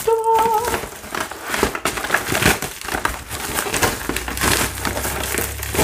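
A pink padded bubble mailer and the stiff clear plastic packaging inside it crinkling and crackling as they are handled, with a short hum from a person's voice at the very start.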